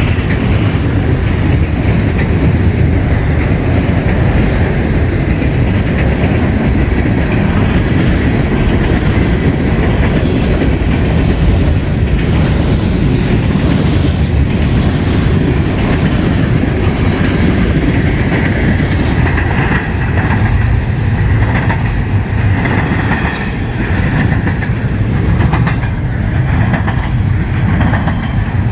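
A CN train rolling past close by: a steady, loud rumble of the cars with the clickety-clack of wheels over the rail joints.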